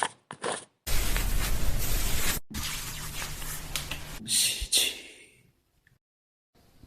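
Water spraying and hissing during a salon hair wash, in several short bursts that start and stop abruptly, with a longer, louder spell of spray about a second in and a silent gap near the end.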